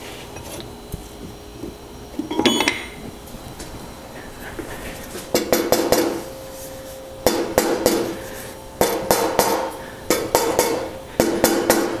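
Hammer blows on a steel tool seated in the notches of a vintage bicycle's bottom-bracket lock ring, metal on metal, to break the stuck ring free. The sharp, ringing strikes come in quick clusters, starting about five seconds in and repeating every second or two.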